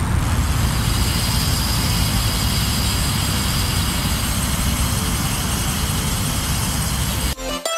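Rear freehub of a Fnhon Blast folding bike ticking in a rapid, steady buzz as the rear wheel spins freely off the ground; it cuts off suddenly near the end.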